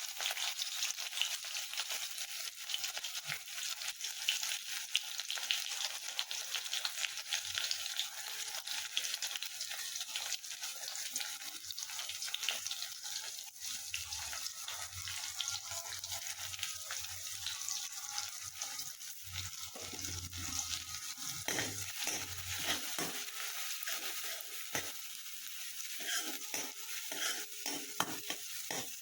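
Hot oil sizzling steadily in a cooking pan as spices fry, with a spatula stirring and knocking against the pan, more often in the second half.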